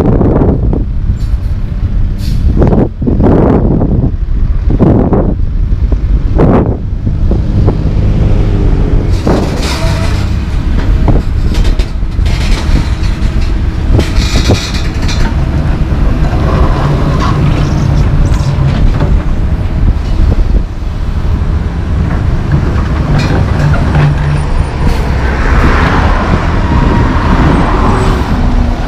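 Heavy diesel engines of dump trucks and an excavator running amid street traffic, with several sharp knocks in the first seven seconds.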